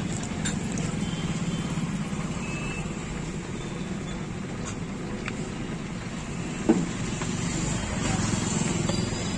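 Steady low rumble of street traffic and running engines, with a single sharp knock about two-thirds of the way through.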